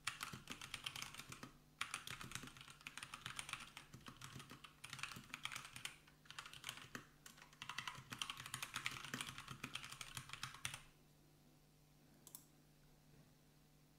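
Fast typing on a computer keyboard, with runs of keystrokes broken by two short pauses. The typing stops about eleven seconds in, and one single key click follows a little later.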